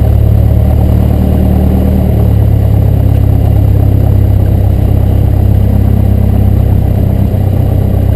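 Cessna 172's single piston engine and propeller running steadily at high volume, with a slight shift in its pitch about two seconds in.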